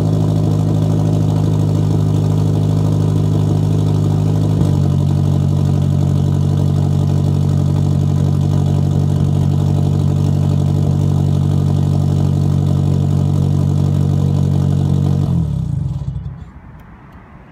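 Nissan 240SX's SR20 inline-four idling through a straight-piped exhaust, warming up after a cold start. The idle holds steady, then stops about fifteen seconds in and dies away.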